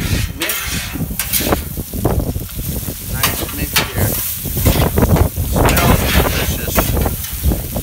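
Diced pork in green chile sauce sizzling on a steel flat-top griddle while two metal spatulas stir and chop it, giving irregular sharp scrapes and clacks of steel on the griddle.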